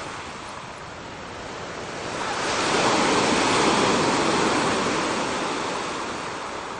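Ocean surf: a wave comes in and breaks about two seconds in, its rushing noise swelling to a peak and then slowly fading.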